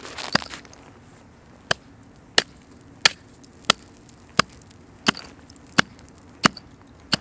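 Small hatchet chopping into lake ice to cut a fishing hole: a steady run of sharp strikes, roughly three every two seconds, after a brief scuffling crackle at the start.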